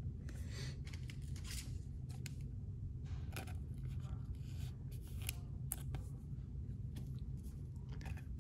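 A trading card being slid into a thin clear plastic sleeve and handled: a string of short, irregular crinkles and rustles of plastic.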